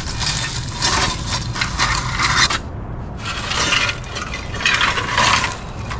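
Metal scraping and clinking as an exhaust manifold is worked loose and out from under a small-block Chevy 350: one long stretch of scraping, then two shorter bursts.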